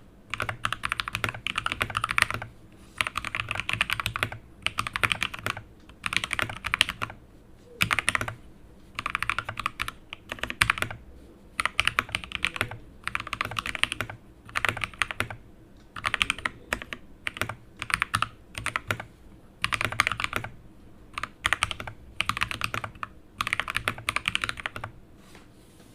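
Tecware Phantom mechanical keyboard fitted with lubed Gateron Yellow linear switches being typed on, fast runs of keystrokes in bursts of a second or two with short pauses between, stopping just before the end.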